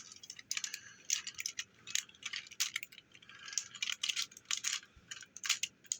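Hard plastic parts of a transforming Engine-O robot toy clicking and rattling as they are folded and handled by hand, a string of irregular light clicks.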